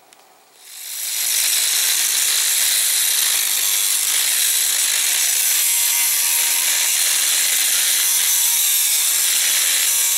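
Electric angle grinder with a thin cut-off disc cutting a slot into a steel pipe clamped in a vise. It starts about half a second in and runs loud and steady, a high grinding screech, until the end.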